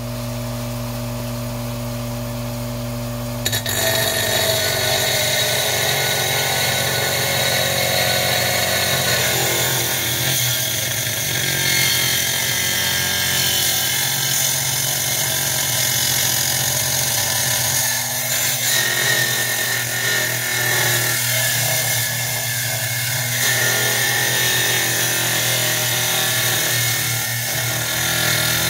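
Wet diamond-blade glass saw running steadily, then from about three and a half seconds in cutting into a sheet of red stained glass with a louder, steady grinding hiss.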